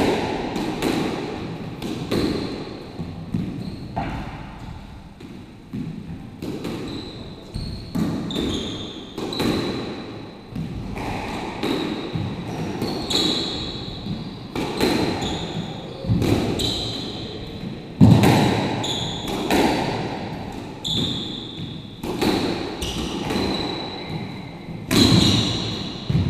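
Squash rally: the ball knocking sharply off racquets and the court walls at irregular intervals, with heavy footfalls and short high squeaks of shoes on the wooden court floor.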